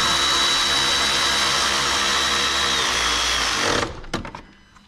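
Handheld power tool motor running steadily with a high whine for nearly four seconds, dipping slightly in pitch near the end before it stops, followed by a few light clicks.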